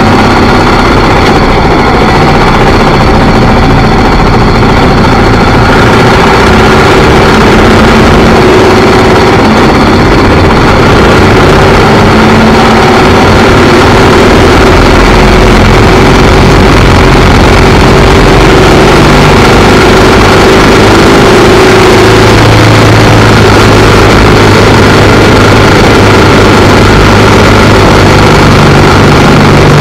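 Royal Enfield Bullet motorcycle's single-cylinder engine running on the move, under a loud, even rush of wind noise. The engine note shifts in pitch and settles lower about two-thirds of the way through.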